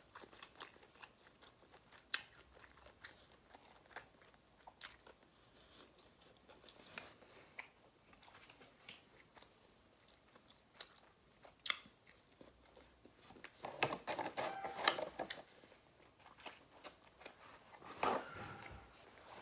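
Close-miked eating: chewing and biting with soft crunches and wet mouth clicks, louder and denser for a couple of seconds about three quarters of the way through.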